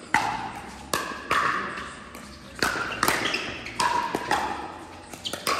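Pickleball paddles striking a hard plastic ball in a quick rally at the net: about eight sharp pops at uneven intervals, some only a fraction of a second apart. Each pop carries a short ringing echo from the large hall.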